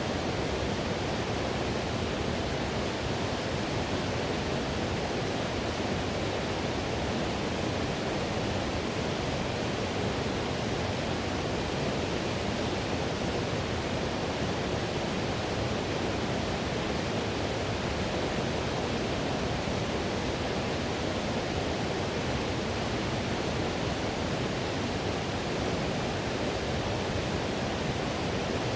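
Whitewater river rushing: a steady, unbroken roar of water with no distinct splashes or changes.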